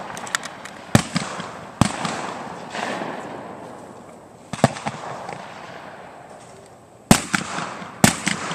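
Shotgun shots at a skeet range: about five loud, sharp reports, in two close pairs and a single, each trailing off in a long rolling echo.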